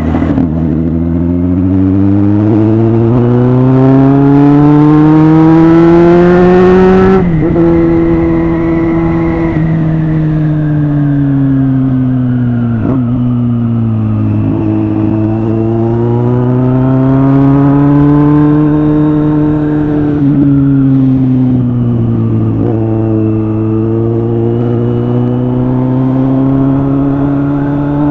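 Kawasaki Z800's inline-four engine under way, its pitch climbing steadily as it accelerates for about seven seconds, then dropping sharply at a gear change. After that the engine speed rises and falls slowly as the throttle is opened and closed, with a few brief dips.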